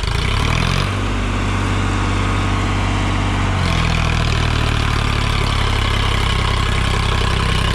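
Sonalika DI-35 tractor's diesel engine working under load while pulling a disc harrow. It revs up about half a second in after a gear change and runs steady, then its note shifts a little lower about three and a half seconds in.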